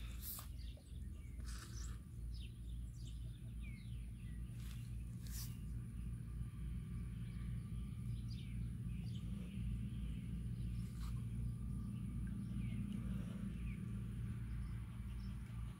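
Outdoor ambience: a steady low rumble of wind on the microphone, with scattered small birds chirping and a few faint clicks.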